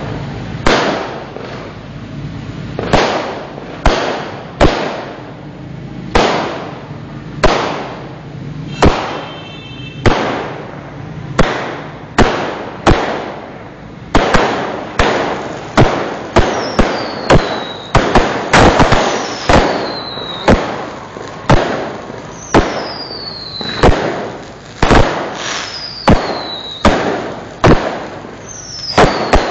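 Fireworks going off in a string of loud, sharp bangs, spaced out at first and coming thick and fast from about halfway through. Several short falling whistles sound in the second half.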